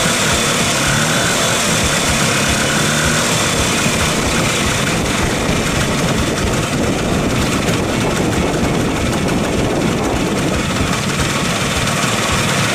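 A 1983 Vespa PX 125 E's single-cylinder two-stroke engine running steadily at idle, warmed up. It has been freshly revived after twenty years standing, with its original carburetion.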